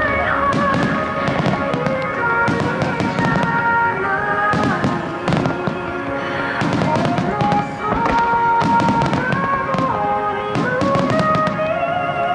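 Fireworks bursting in rapid, overlapping succession, many sharp bangs a second from a massed display of aerial shells, with music carrying a melody playing underneath.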